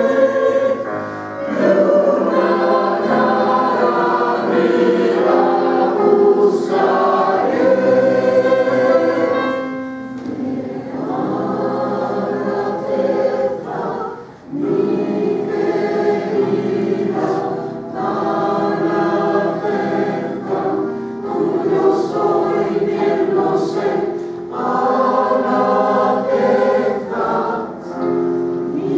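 A mixed choir of men's and women's voices sings sustained chords in parts, with a short break between phrases about halfway through.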